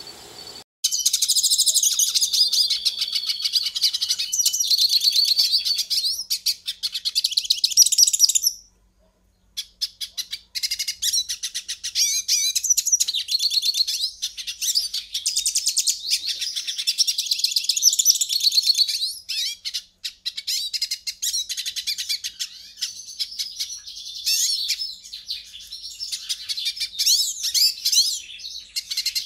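A pintassilgo finch singing a long, fast, twittering song of chirps and trills. It breaks off briefly about nine seconds in and dips again about twenty seconds in.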